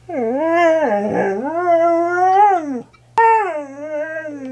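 A husky 'talking' in two long, wavering howls, the first lasting nearly three seconds, the second following a brief pause and a sharp click about three seconds in.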